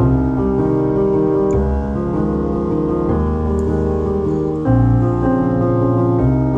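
Background piano music, with chords changing about every second and a half.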